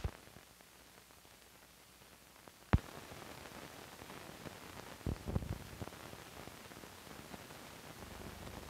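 Faint hiss of an old film soundtrack with no programme sound: one sharp click a little under three seconds in, after which the hiss gets louder and a cluster of crackles and pops comes about five seconds in.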